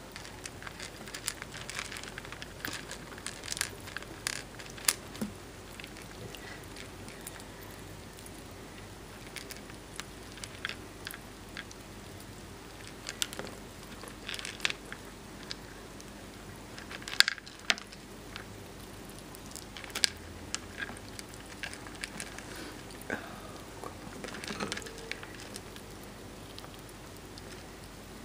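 Pet rats fishing peas out of a shallow glass dish of water and pebbles and eating them: scattered small clicks and crunches from chewing and from nosing among the stones, with one louder click about two-thirds of the way through.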